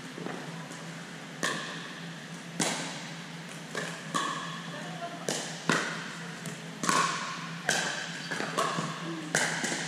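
Pickleball paddles striking the hard plastic ball and the ball bouncing on the gym floor: sharp pops about once a second, each echoing in the big hall. Indistinct voices run underneath.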